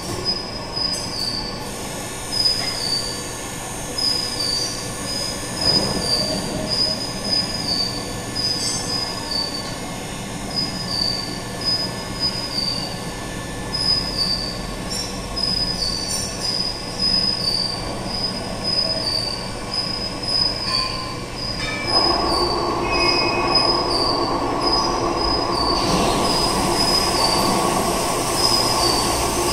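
Horizontal hydraulic milling machine running: a high-pitched squeal pulses about once a second. About 22 seconds in, a louder steady running sound sets in.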